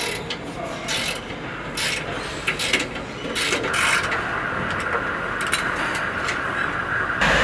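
Hand tools working on a vehicle's wheel hub: scattered metal clinks and clanks and a socket wrench being turned, over steady shop noise.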